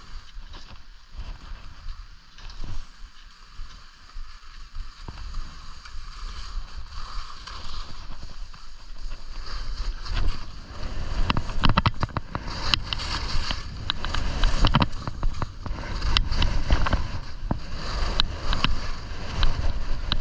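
Skis scraping and chattering over crunchy, hard-packed snow on a downhill run. The noise grows louder and rougher in the second half, with many short, sharp clicks.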